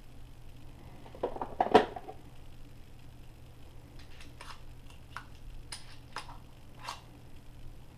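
Metal clacks of pistol conversion kit parts being handled, a loud cluster about 1 to 2 seconds in, followed by about six short sharp clicks as the magazine follower of the Ciener kit is pushed down and released.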